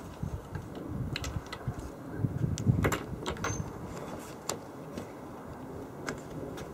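Scattered light clicks and knocks of a Stryker StrykeZone 380 crossbow being handled and lifted, busiest about three seconds in.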